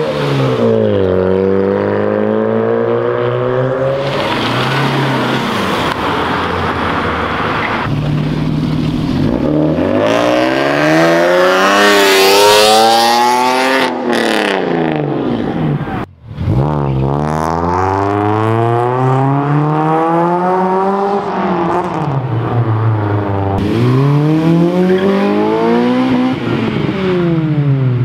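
Modified cars accelerating away one after another, each engine revving up in pitch through the gears and falling away as it goes past. There are several rising and falling sweeps, with a brief break about halfway through.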